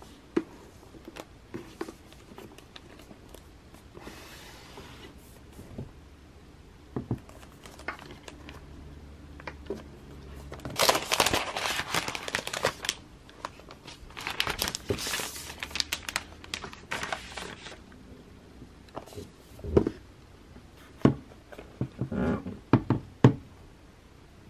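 Unboxing a MacBook Pro: light clicks and taps as the laptop is lifted from its cardboard box. Then its thin protective wrap crinkles loudly in two long stretches as it is peeled off. A few sharp knocks near the end as the laptop is set down.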